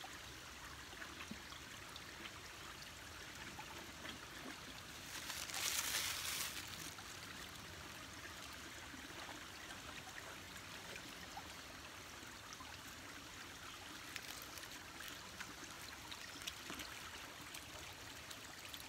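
Shallow creek trickling over a low rock ledge, a steady light rush of water. About five seconds in the rushing swells louder for a second or two, then settles back.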